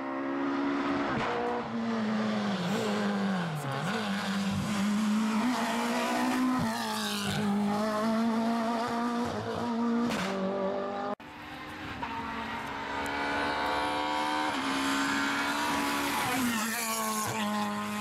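Four-cylinder rally car engines at full attack, revving hard with the pitch climbing and dropping through gear changes and braking, with some tyre squeal. There is an abrupt cut to another car about eleven seconds in.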